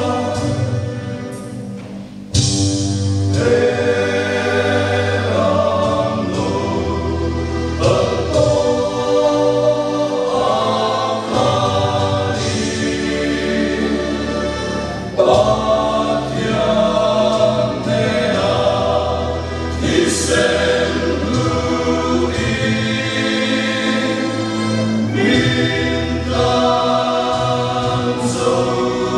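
Male voice choir singing a church song in parts, with a short breath between phrases about two seconds in.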